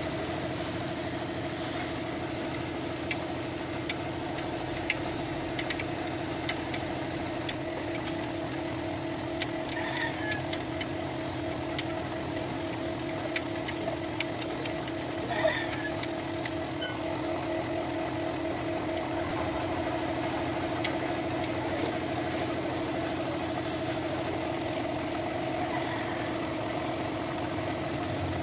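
A vehicle engine idling steadily, a constant hum, with a few light metallic clicks from a wrench working an oil pan drain plug.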